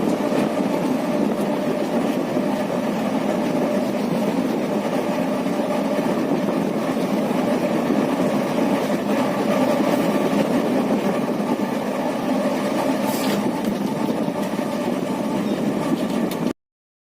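A train running steadily along the track, a continuous even rumble with a faint steady hum; it cuts off abruptly near the end.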